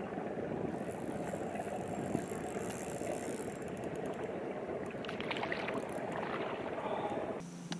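Water lapping and sloshing against a boat hull, with scattered light clicks from a spinning reel being handled. Near the end the sound cuts abruptly to a quieter backdrop with a low steady hum.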